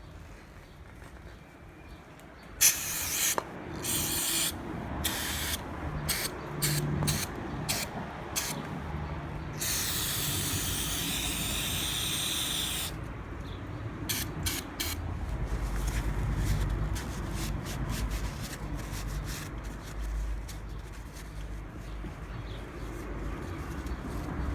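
A string of short hissing spray bursts, then one steady hiss of about three seconds, then a few more short bursts. A low rumble follows in the second half.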